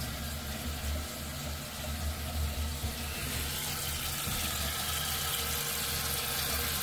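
Toilet tank refilling through a newly installed universal fill valve: a steady rush of running water over a low rumble, growing brighter and hissier about halfway through.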